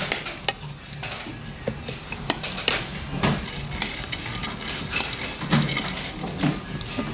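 Metal spoon and chopsticks clinking and scraping against a ceramic plate while eating: irregular, scattered sharp clicks.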